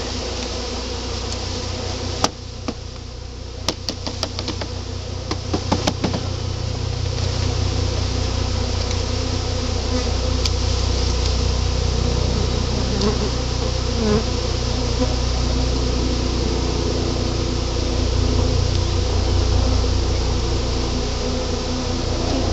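A cloud of Carniolan honeybees buzzing in a steady drone as they fly around an open hive, stirred up after being shaken out of their package; the buzz swells after the first several seconds. A few sharp wooden knocks and clicks in the first six seconds come from the hive's wooden covers being handled.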